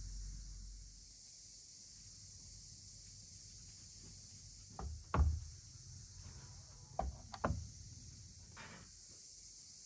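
Steady high-pitched insect chirring, with a few short knocks and taps about halfway through, the loudest a little after five seconds in.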